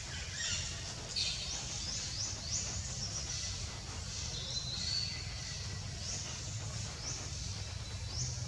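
Forest ambience: birds giving short, high, rising chirps again and again, over a steady low hum.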